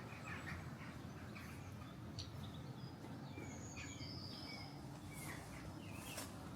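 Small birds chirping and calling in short, scattered notes over a steady low background rumble.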